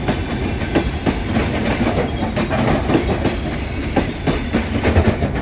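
Passenger coaches rolling past close by, their wheels clicking and knocking irregularly over the rails above a steady rumble.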